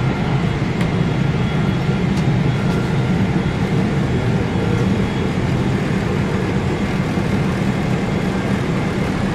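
Steady rush of the air-conditioning in a parked Boeing 777-200's cabin: a constant low drone with faint steady high tones above it. A couple of faint clicks sound about one and two seconds in.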